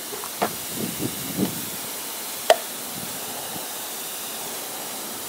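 A few light knocks and clicks from handling the thermostat and its housing, with one sharp click about two and a half seconds in, over a steady hiss.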